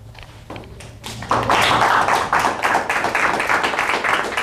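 Audience applauding: a dense patter of many hands clapping starts about a second in and carries on steadily.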